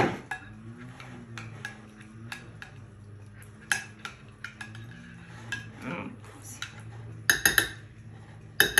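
Spoon stirring thick, cooled béchamel in a glass bowl, clinking against the glass now and then, with a quick run of clinks about seven seconds in and another near the end.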